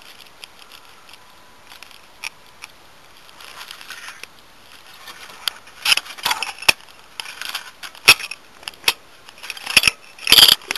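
Battery-powered AK47 BB gun fired in single shots at beer cans: sharp, irregularly spaced cracks of the shots and the pellets striking the cans. A couple come faintly early on, and then they come in quick succession through the second half.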